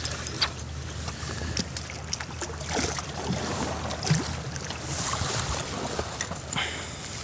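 Sea water lapping and splashing against shoreline rocks, with scattered small clicks and knocks and wind on the microphone.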